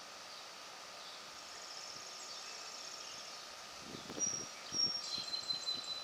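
Outdoor daytime ambience with songbirds: a rapid high trill, then clear high whistled notes in the second half. From about four seconds in, low rumbling bumps on the microphone are the loudest sound.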